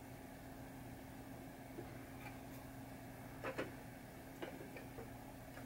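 A few faint, light metallic clicks from pliers bending the switch spoon of a pinball pop bumper, over a steady low hum; the loudest is a quick double click about three and a half seconds in.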